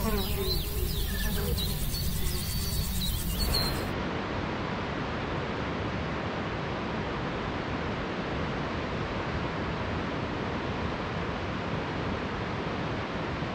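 Birds calling and chirping over a low wind rumble, then about three and a half seconds in an abrupt change to a steady, even rush of wind on the microphone with no calls.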